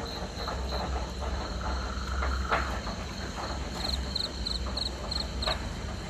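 Crickets chirping in repeated short pulses, with a quicker run of chirps near the end, over a steady low rumble and a couple of faint clicks.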